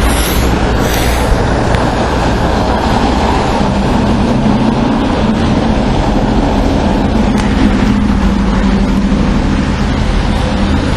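Bus engine and road noise heard from inside the passenger cabin: a steady low rumble, with an engine drone coming in about four seconds in.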